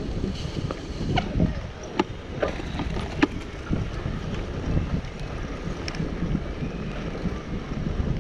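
Wind buffeting the microphone in a steady low rumble, with a few sharp clicks and knocks scattered through it, the strongest about two and three seconds in.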